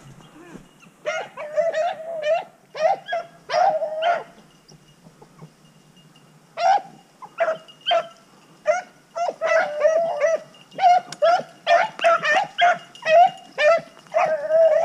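Rabbit hounds baying as they run a cottontail's scent trail: many short, pitched calls one after another. They thin out for about two seconds near the middle, then come again thick and fast.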